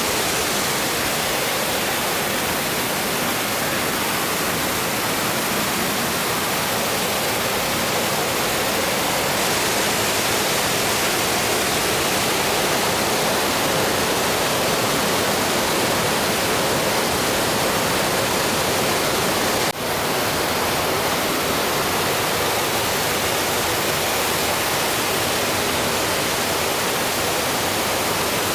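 Steady rush of water pouring over a small waterfall on a mountain stream, with one momentary dip about twenty seconds in.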